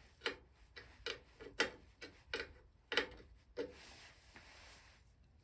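Sharp metallic clicks from a hand tool working the belt-tensioning nut and bolt on a bench lathe's rear pulley plate, about two a second and unevenly spaced, stopping after about three and a half seconds.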